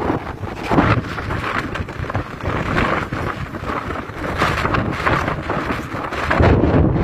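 Strong wind blowing across a phone microphone, a rushing noise that swells and drops in gusts, strongest near the end.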